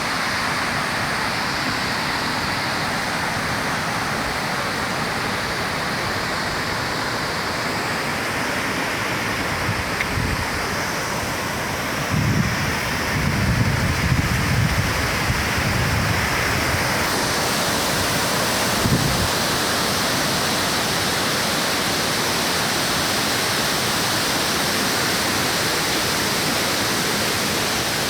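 Steady rush of falling water from Oshinkoshin Falls, a waterfall. A few low rumbles come through between about 12 and 16 seconds in, and a little past halfway the sound turns hissier.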